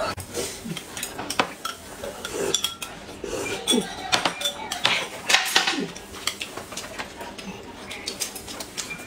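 Eating at the table: chopsticks and a spoon clicking and clinking against plates and glass cups, many short irregular knocks, with slurping and chewing of dumplings and soup.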